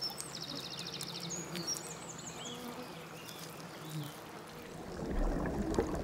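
A stream babbles quietly. Over the first couple of seconds there is a quick high-pitched trill and several short high chirps. A low rumble swells in near the end.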